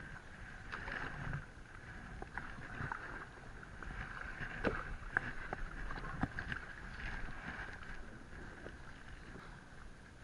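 Kayak paddled through shallow water and run up onto a sandy beach: faint water swishing with scattered knocks and clicks from the paddle and hull, over a steady faint high hum.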